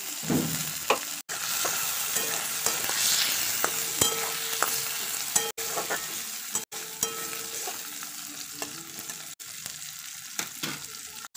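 Chopped tomatoes and onions sizzling in hot oil in a kadhai while a metal spatula stirs and scrapes them around the pan, with many small clicks of the spatula against the metal. The stirring gets louder about half a second in.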